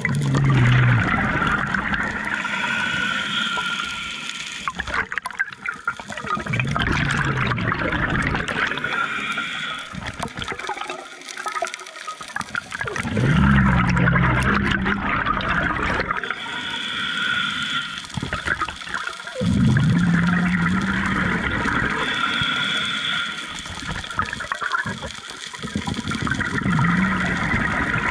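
Scuba diver breathing through a regulator underwater. A hissing inhale alternates with a low rushing gurgle of exhaled bubbles, the cycle repeating about every six seconds.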